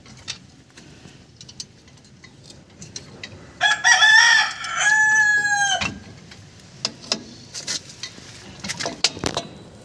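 A rooster crowing once, about four seconds in: a two-part call of about two seconds that wavers, then holds one note before dropping off. Around it come scattered light metal clicks from tools and the brake-shoe return springs being fitted.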